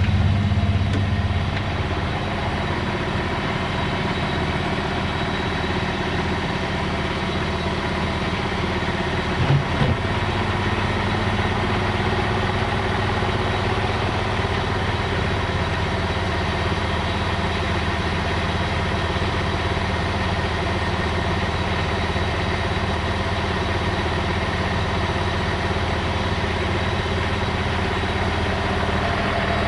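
Underfloor diesel engine of a Bombardier Talent 643 diesel railcar idling steadily while the train stands at the platform, with one brief thump about ten seconds in.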